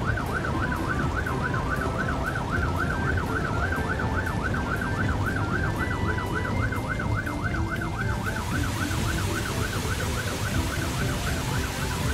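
Fire engine siren warbling fast up and down, several times a second, over a steady low rumble. From about eight seconds in, the hiss of water spraying from the fire engine's hose joins it.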